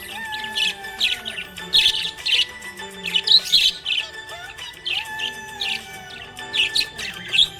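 Budgies chirping and chattering in quick, busy bursts, over background music with long held notes.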